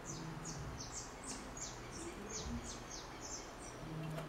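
A small bird chirping over and over in the background: short, high chirps that fall in pitch, about three a second, heard faintly.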